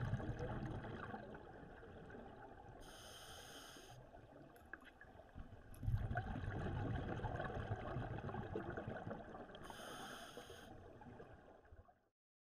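Scuba breathing heard underwater: a low bubbling rumble of exhaled air, a short hiss of the regulator on the in-breath about 3 s in, another long bubbling exhalation from about 6 s, and a second in-breath hiss near 10 s. The sound cuts off abruptly shortly before the end.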